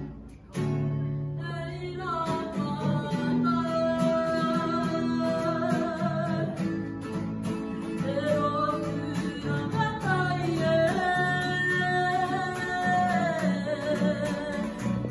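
Kapa haka group singing a Māori song in unison to a strummed acoustic guitar. The music drops out briefly just after the start, then the guitar and the voices come back in.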